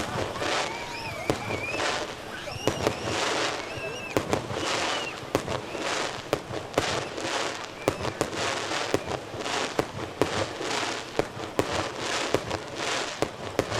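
Aerial fireworks display: shells bursting in quick succession with sharp bangs, many followed by crackling.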